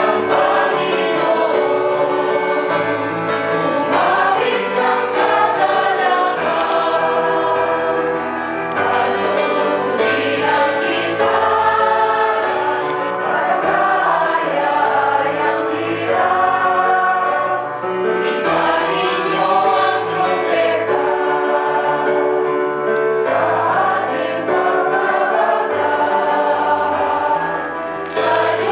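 A choir singing a hymn with instrumental accompaniment, sustained bass notes changing under the sung melody.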